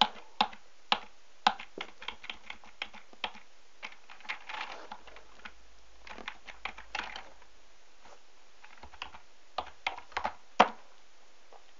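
Typing on a computer keyboard: irregular keystrokes, some struck harder than others, with a short pause a bit past halfway and one louder key press near the end.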